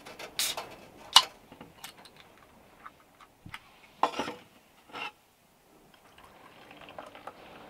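A small steel wood stove's door is shut with a scrape and a sharp metal clank about a second in, followed by light clicks. About four seconds in a drink can is cracked open, and near the end the drink is poured into a small metal cup with a faint steady trickle.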